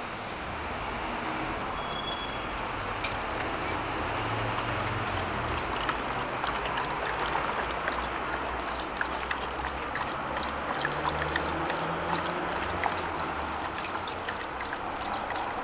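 Several dogs lapping water from plastic bowls: a steady wet splashing with many small irregular clicks.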